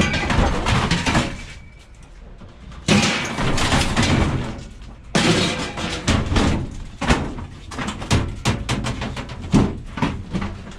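Scrap metal being handled and loaded into a van: a run of clattering knocks and bangs, thickest in the second half.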